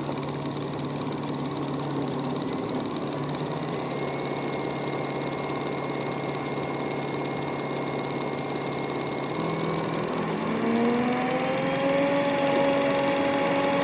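A robot vacuum running, its suction fan and brushes making a steady motorised noise with a low hum. A thin high whine joins after a few seconds, and about ten seconds in the motor tone rises in pitch and grows a little louder, as the fan speeds up.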